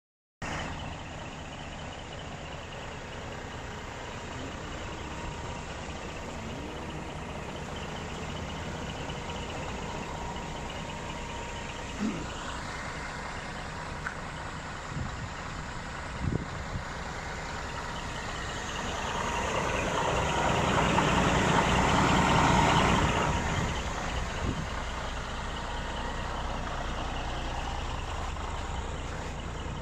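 Scania R420 tractor unit's diesel engine idling steadily, with a few short knocks. The sound swells louder for a few seconds past the middle, then settles back.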